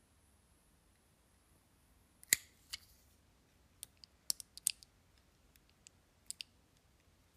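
Faint hiss of a lighter flame heating heat-shrink tubing on battery leads, which stops with a sharp click a little over two seconds in. After it come scattered small clicks and ticks as the shrunk wires and their small plastic connector are handled.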